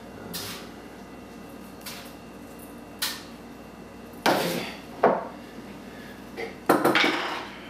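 Jars, bottles and utensils being picked up and set down on a wooden table: a series of separate knocks and clinks, the loudest about four seconds in and a louder cluster near the end.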